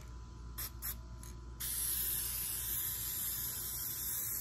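Rust-Oleum Frosted Glass aerosol spray can: a few light clicks, then the spray starts about a second and a half in and hisses steadily as a coat goes onto a glass pane.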